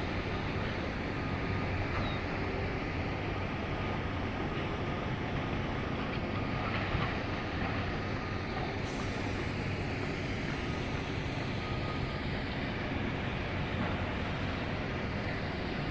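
Steady outdoor traffic noise, a continuous rumble of passing vehicles. A thin high hiss joins it about nine seconds in and stops about three seconds later.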